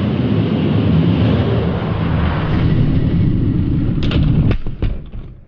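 Die-cast toy monster trucks rolling fast down plastic track lanes, a loud steady rumble, then several sharp clacks about four seconds in as they hit the plexiglass at the bottom, after which the noise dies away.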